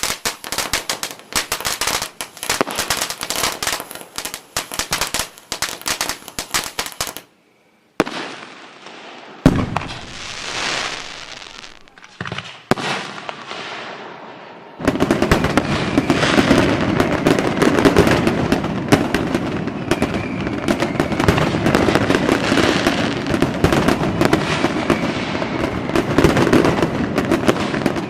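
Fireworks going off: fast, dense crackling for about seven seconds, then a brief sudden silence, a few separate bangs each trailing off in a hiss, and from about halfway on a continuous barrage of crackles and bangs.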